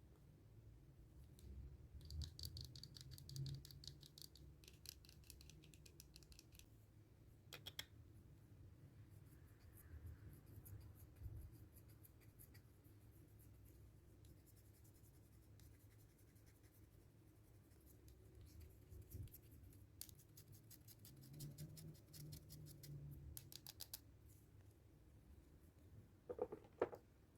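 Hard, dry bar soap being scraped in quick, fine scratchy strokes. The strokes come in a few bursts of several seconds, with quiet stretches between.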